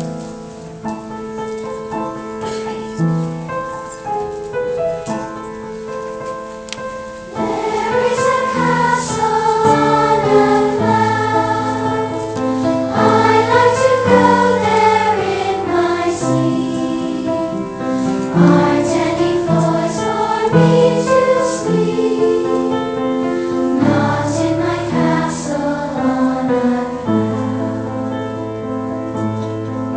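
Choir singing with piano accompaniment. The piano plays alone at first, and the voices come in about seven seconds in, louder.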